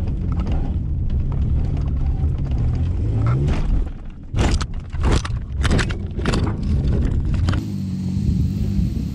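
Dodge Dakota pickup engine running hard inside the cab, its pitch rising about three seconds in as the truck accelerates. It then drives through a fireball and over a jump, and a string of loud bangs and thuds follows as the truck lands and bounces several times. Near the end the truck's engine is heard from outside as it drives across the grass.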